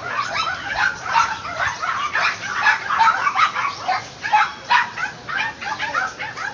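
Several small dogs yapping and barking in quick, overlapping calls: the noise of caged pets in a pet shop.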